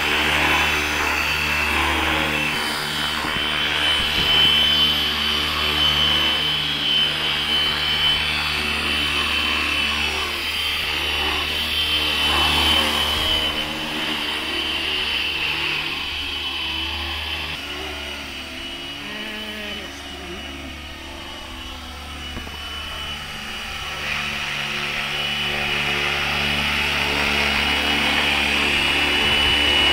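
Electric 450-size RC helicopter (Flywing FW450 V3 mechanics with a two-bladed main rotor) in flight: a steady high whine over a low rotor hum. It grows fainter about two-thirds of the way through as the helicopter moves away, then louder again near the end as it comes back close.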